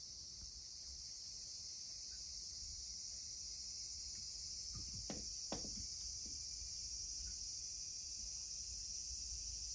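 A steady, high-pitched chorus of insects from the garden. About five seconds in come two soft thumps a fraction of a second apart, as a cat jumps up onto a wooden stool and lands.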